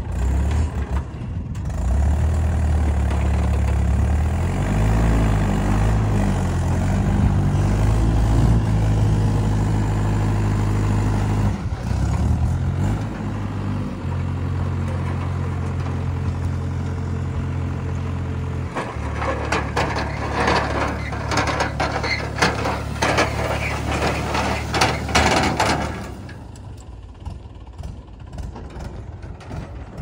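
Mahindra 475 DI tractor's diesel engine running and revving as it works the trailer's tipping hydraulics. About two-thirds of the way in, a dense clatter of soil clods tumbling out of the tipped trailer bed lasts several seconds, then eases off as the engine settles.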